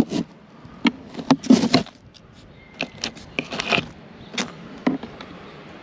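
Crabs and ice being stirred by hand in a plastic container: a string of short sharp clicks and rattles of shells and ice.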